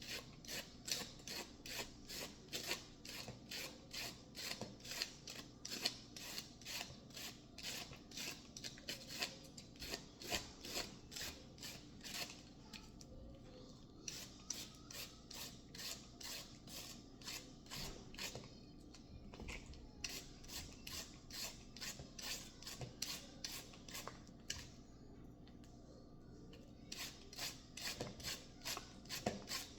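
Repeated rasping cutting or shredding strokes on food, about three a second, coming in runs with short pauses between them.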